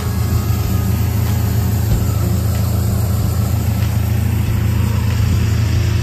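An engine running at a steady idle, a constant low hum with no change in speed.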